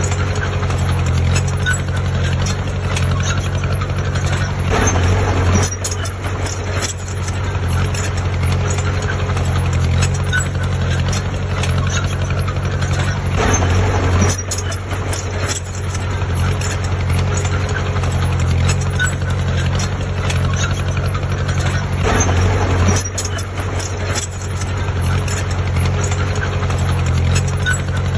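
Heavy diesel engine of earthmoving machinery running steadily, swelling louder three times, about every nine seconds.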